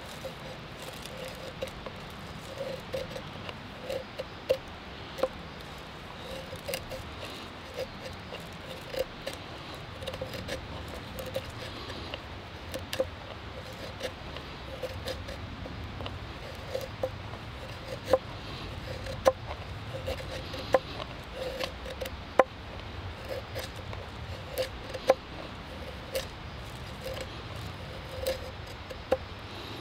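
A fixed-blade knife shaving curls off a stick of wood to make tinder, in repeated short scraping strokes about one or two a second, many ending in a sharp click as the blade meets the board beneath.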